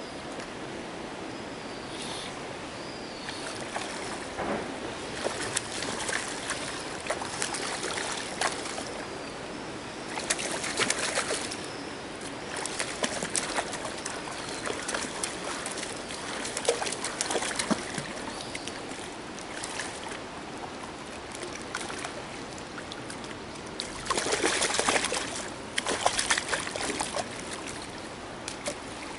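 A hooked trout splashing at the water's surface as it is played on a fly rod and drawn to a landing net, in irregular bursts of splashing. The longest and loudest bursts come near the end, as the fish thrashes at the net.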